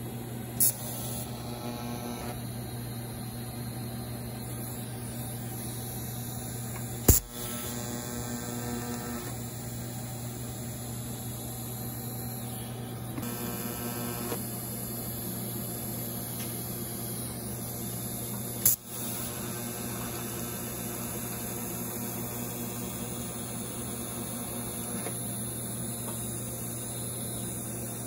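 TIG welding on stainless steel: a steady electrical hum with a high hiss from the welder and arc, broken three times by a short sharp snap as the arc strikes, about a second in, about seven seconds in and near nineteen seconds in.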